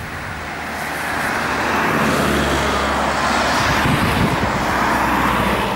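Several cars driving past close by on a country road, with tyre noise and engine sound. The sound swells over the first two seconds and stays loud as they go by, easing off near the end.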